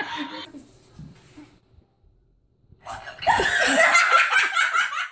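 Laughter trails off in the first half-second, then a near-silent gap; about three seconds in, a young girl's loud, shrieking laughter.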